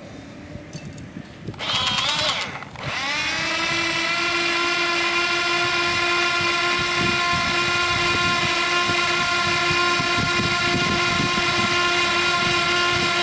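Electric motor of an RC model whining: a short burst about a second and a half in, then it spins up about three seconds in and holds a steady high whine.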